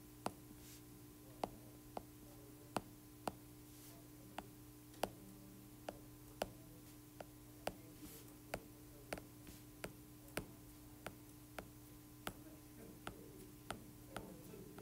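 Stylus tip tapping on an iPad's glass screen, a series of light clicks about two a second, each tap putting down an electron dot. A faint steady hum runs underneath.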